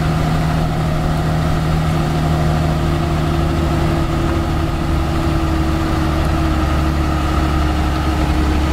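Turbo Cummins diesel engine of a Dodge Ram 3500 pickup running at low speed as the truck drives slowly, a steady low drone with no change in pace.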